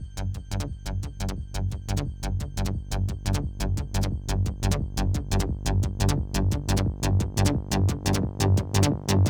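Hardcore drum and bass track: rapid, evenly spaced electronic drum hits over a heavy bass line, building steadily louder.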